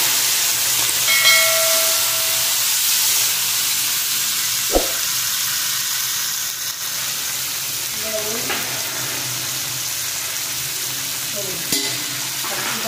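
Potato wedges and vegetable stems frying in oil in a metal kadai, sizzling steadily while a long metal spatula stirs and scrapes through them. The spatula knocks sharply against the pan once about five seconds in.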